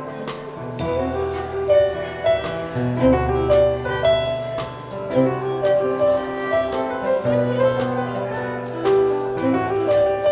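Live contra dance band playing a dance tune: a fiddle melody over rhythmic digital piano chords, with a steady even beat.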